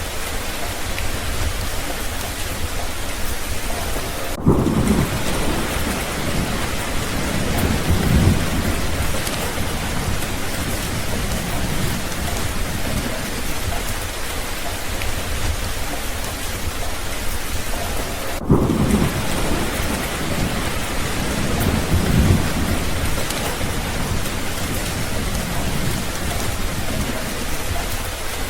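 Steady heavy rain falling, with rolling thunder rumbling in twice, about four seconds in and again about eighteen seconds in, each roll swelling a second time a few seconds later.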